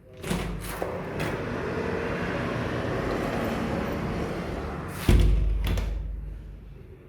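A noise-insulating PVC window opened with a few clicks, letting in loud, steady outside noise. About five seconds in it is shut with a heavy thud and a click, and the noise fades away.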